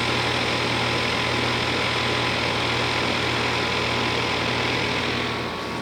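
A 2001 Trane XE1000 5-ton heat pump's outdoor unit running steadily in heat mode, just switched back from a defrost cycle: the scroll compressor hums under the whoosh of the condenser fan. The sound drops a little near the end.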